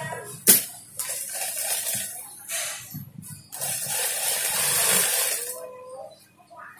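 Fabric rustling and sliding across a sewing table as it is arranged under a sewing machine's presser foot, with one sharp click about half a second in.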